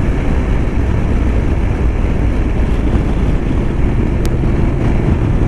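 Motorcycle riding at steady speed: engine hum under heavy wind rush on the rider's microphone, with one short click about four seconds in.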